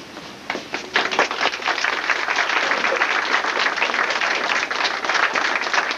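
Group applause: many people clapping their hands, starting about half a second in and keeping up steadily.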